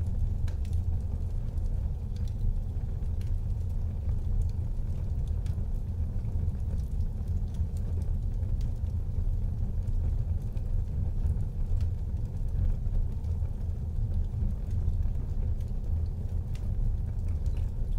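Wood fire burning in a fireplace: a steady low rumble of flames with frequent faint crackles and pops scattered throughout.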